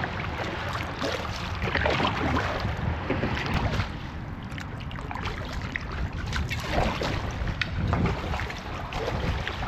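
Kayak paddle dipping and splashing in river water, in irregular small splashes, with wind rumbling on the microphone.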